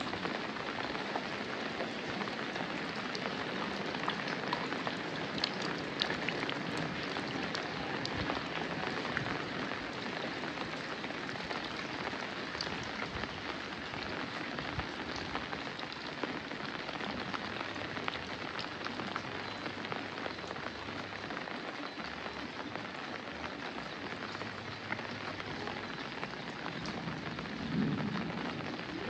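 Steady rain: an even hiss made up of many small pattering drops falling on wet surfaces.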